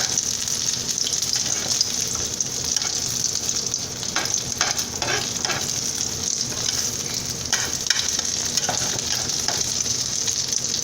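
An egg omelet sizzling steadily in oil in a hot skillet, with a few short clicks or scrapes along the way.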